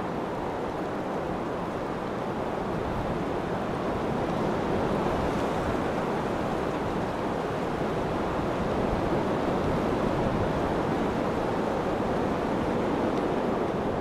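Steady rushing noise with no distinct events, like wind blowing across the microphone.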